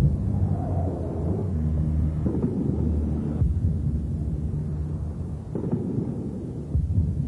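Distant weapons fire: a continuous low rumble with four dull thumps spread through it.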